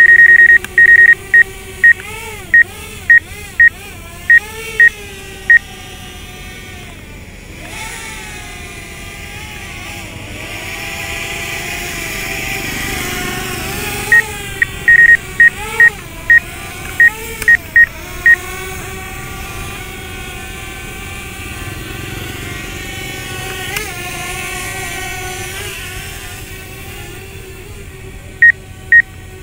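Runs of short, loud, high beeps from the DJI app's obstacle-proximity warning, sounding while the Mavic Air's obstacle sensors detect trees and posts close by. Under the beeps a steady motor hum wavers up and down in pitch: the Mavic Air's propellers as it hovers and adjusts.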